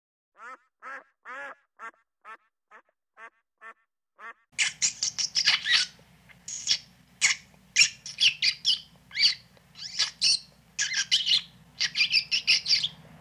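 About nine short, quacking bird calls at roughly two a second. About four and a half seconds in, the sound changes abruptly to loud, harsh bird squawks over a steady low hum.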